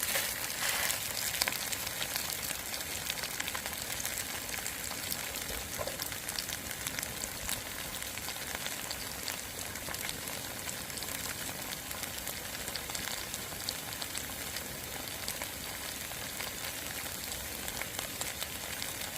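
Buchimgae (Korean savoury pancake) sizzling as it fries in hot oil: a steady hiss with fine crackles and pops, a little louder in the first couple of seconds.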